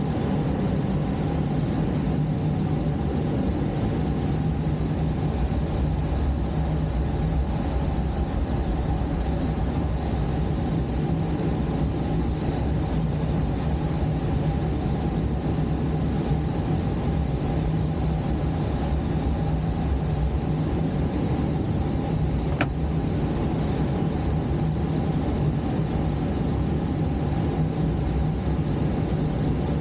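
Steady drone of the tow plane's engine and propeller, heard from the glider cockpit on aerotow over the rush of airflow. A single click comes about three-quarters of the way through.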